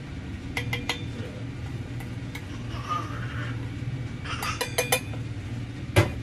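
Wooden chopsticks clinking and scraping against stainless steel bowls while beaten egg is scraped out of one bowl into another. There are a few quick clicks about half a second in, a rapid run of them past the middle, and a single louder metal knock near the end, all over a steady low hum.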